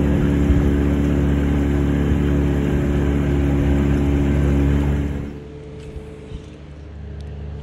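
Boat motor running steadily, loud and close. About five seconds in it drops away to a much quieter background with a few faint clicks.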